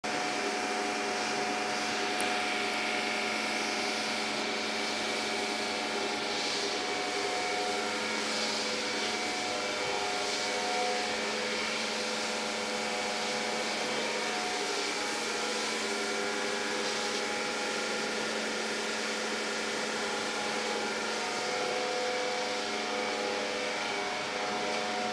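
Steady mechanical hum with several held whining tones, staying at an even level.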